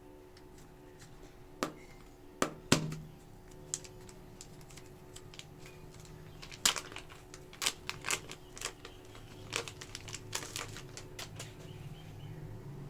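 Irregular plastic clicks, taps and crinkles from super clay tubs and their packaging being unboxed and handled, with sharper clicks a little under three seconds in and around seven seconds in.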